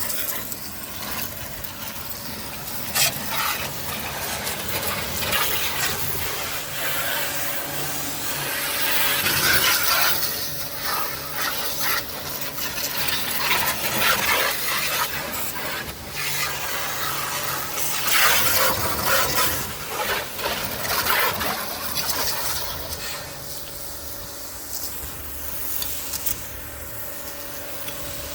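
AGARO Supreme electric pressure washer spraying a high-pressure water jet onto a car, a hissing, splashing spray that swells and fades as the jet moves, with the washer's motor humming steadily underneath.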